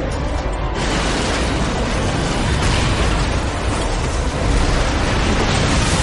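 Loud, dense rumbling and crashing noise that swells suddenly about a second in: a runaway freight train derailing and crashing at high speed, as rendered in a dramatised reconstruction.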